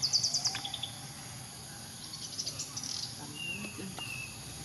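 Birds chirping in two quick high trills, one at the start and one around the middle, with a few short whistled notes after, over a steady high insect drone.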